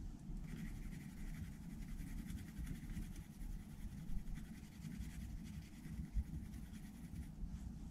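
Faint scratching and handling noises of hand work on metal lathe parts, with a couple of light knocks about four and six seconds in.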